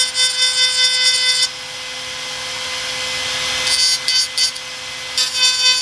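Handheld pen-type rotary grinder running at a steady high whine, with a stretch of harsher grinding noise in the middle as it cuts into the surface of a motorcycle body part, smoothing it out before filler goes on. The whine breaks off and comes back a few times as the tool is worked.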